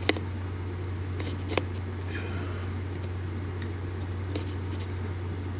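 Irregular light clicks of fingertips tapping a phone's touchscreen keyboard, over a steady low hum.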